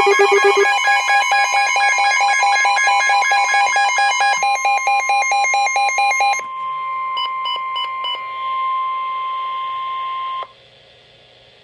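NOAA Weather Radio's steady 1050 Hz warning alarm tone, announcing a tornado warning. For the first six seconds it is layered with other rapid pulsing electronic alert beeps, then a few short beeps follow. The tone cuts off about ten and a half seconds in, leaving faint hiss.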